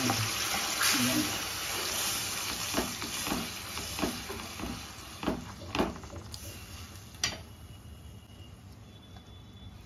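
Tomato purée sizzling as it fries in hot oil in a pan, while a wooden spatula stirs it and knocks against the pan several times. The sizzle dies down over the second half.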